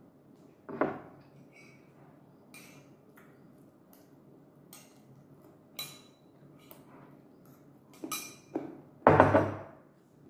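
Eating at the table: a spoon clinking against a bowl and dishes in scattered short clicks, with mouth sounds of eating. A louder short voiced sound about a second in and again, loudest, near the end.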